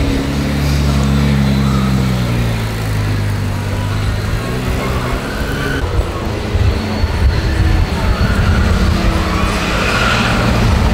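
Sports cars pulling out at low speed. First a Ferrari 296 GTS's engine runs past with its pitch slowly falling. About halfway in, a C8 Corvette's V8 takes over with a louder, low, pulsing rumble at low revs as it rolls by.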